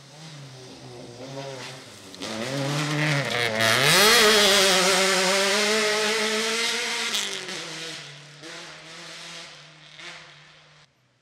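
Rally car accelerating past at speed. The engine note dips just after three seconds in, then climbs sharply and is loudest around four seconds. It then falls away in pitch and loudness as the car goes off into the distance.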